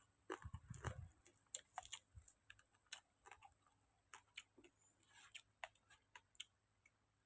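Close-up eating sounds: chewing grilled field rat, with irregular small crunches and wet clicks of bone and mouth, and a soft low thump about a second in.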